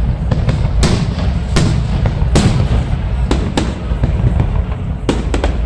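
Fireworks display: aerial shells bursting with sharp bangs at an irregular pace, sometimes two or three within a second, over a steady low background rumble.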